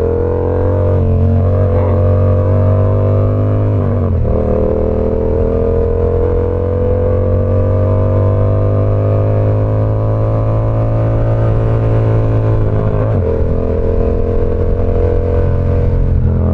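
Yamaha R7's parallel-twin engine pulling under acceleration, its pitch climbing steadily with a gear change about four seconds in and another near thirteen seconds.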